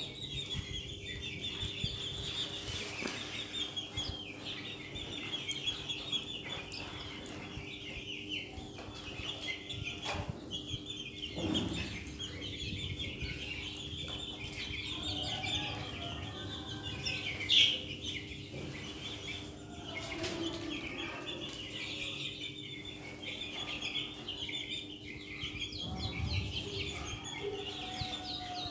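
A flock of young Australorp chickens peeping and clucking continuously in a dense high chatter, with one louder, sharper call about seventeen seconds in. A faint steady hum runs underneath.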